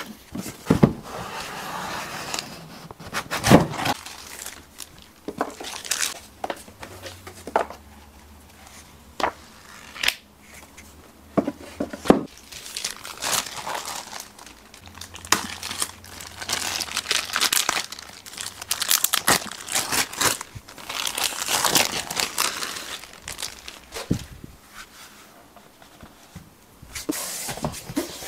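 Unboxing: cardboard box being opened and handled, with tape tearing, plastic wrap crinkling as the wrapped speaker is lifted out, and scattered knocks and taps of the box and packaging.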